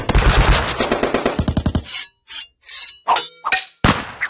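Action-film weapon sound effects: a burst of rapid automatic gunfire, then several short separate shots and sharp metallic gun sounds with brief silences between them.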